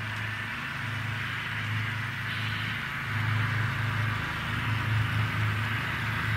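N-scale model freight cars rolling along the layout track: a steady rolling hiss with a pulsing low hum underneath, growing louder about halfway through.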